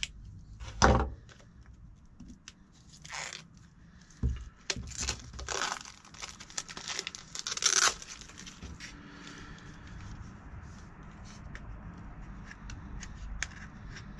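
Clear plastic shrink-wrap being torn and crinkled off a small cardboard box, in ragged bursts that are loudest near the end of the unwrapping. A sharp knock comes about a second in, and after the wrapper is off there is only faint handling of the box with a few small clicks.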